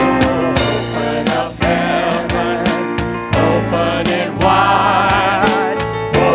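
Worship song with voices singing sustained, wavering notes over a band with steady drum hits.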